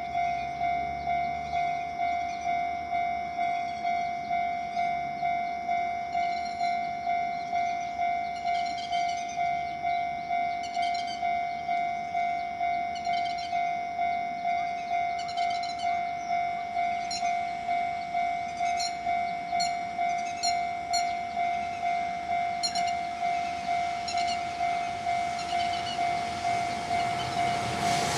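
Railway level-crossing warning alarm ringing in an even repeated tone, a little under two strokes a second, while a train approaches. Near the end the running noise of a JR Freight EF210 electric locomotive and its container train swells in as it arrives.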